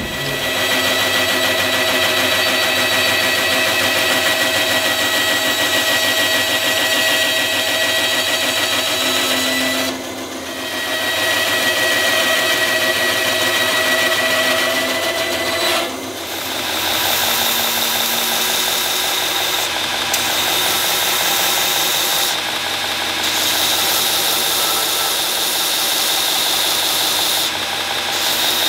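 A bandsaw running and cutting a block, then, about halfway through, a belt grinder running with a taped steel knife blade held against its belt, adding a high steady whine.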